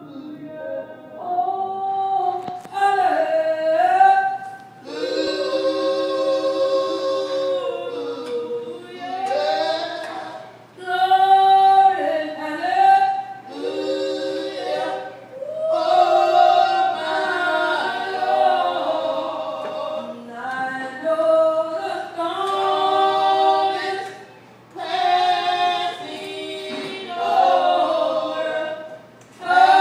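Women's voices singing unaccompanied in harmony, in phrases of a few seconds with held notes and short breaths between.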